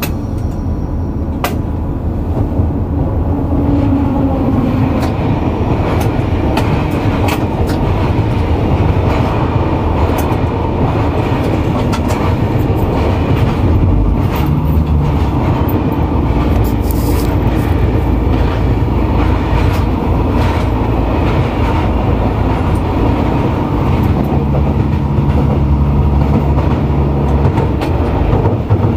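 X72500 diesel railcar running along the line, heard from the cab: a steady diesel drone with scattered sharp clicks from the track. The low engine note shifts about 24 seconds in.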